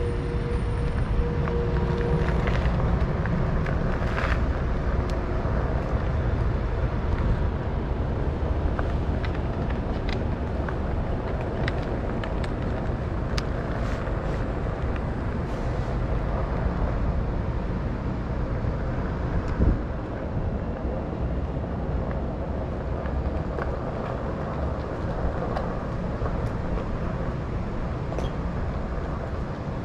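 Steady low rumble of outdoor street and road noise, with scattered light clicks and a single thump about twenty seconds in.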